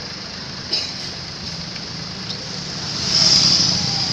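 Bus engine idling with a steady low rumble. There is a short click about three-quarters of a second in, and a hiss that swells about three seconds in.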